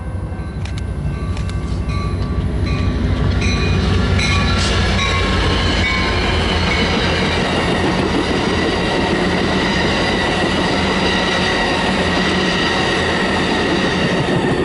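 Train passing close by: a diesel locomotive's low rumble builds over the first few seconds, then the cars roll past in a loud, steady noise with high, steady squealing tones from the wheels on the rails.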